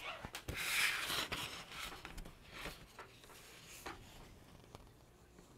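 Handling noise as a small ruler and a sheet of paper are slid and positioned on a cutting mat: a rustling scrape about a second in, then a few light clicks and taps as the ruler is set down and lined up, fading toward the end.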